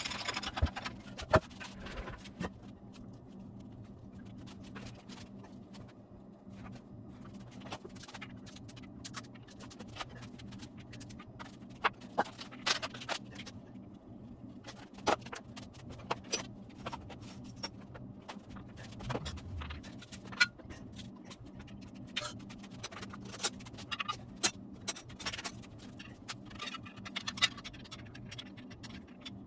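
Scattered metallic clicks, knocks and scrapes of hand tools and parts being handled on an engine, irregular, over a faint steady hum.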